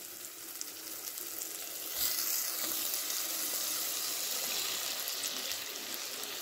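Frying masala sizzling in a clay pot. About two seconds in, the sizzle turns to a louder, brighter hiss as raw pieces of goat liver and fat go into the hot oil.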